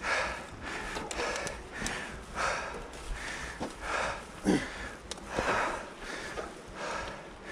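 A mountain-bike rider breathing hard, taking quick, even breaths about one every three-quarters of a second, with a short voiced grunt about halfway through.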